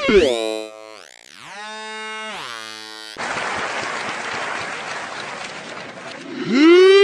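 A string of dubbed comic sound effects. First a pitched, buzzy tone slides down and then swoops up and down. Then comes about three seconds of hissing noise, and then a loud held tone with many overtones that rises in near the end.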